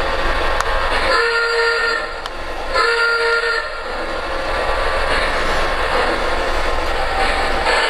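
Electronic horn blown twice by the sound system of a Lionel LionChief Plus O-gauge locomotive, two blasts of just under a second each, about a second apart, as the train starts. Under them the model train runs steadily on the track with a low hum.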